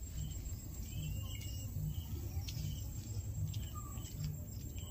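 Outdoor ambience of birds chirping and calling, with one gliding whistle, over a steady high insect drone like crickets. A low rumble pulses underneath about every three-quarters of a second.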